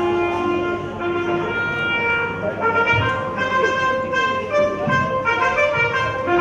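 Instrumental music starts suddenly with a melody of held notes. Its opening phrase begins again near the end.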